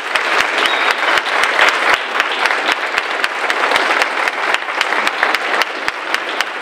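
Audience applauding, a dense steady patter of many hands with sharp individual claps standing out close by.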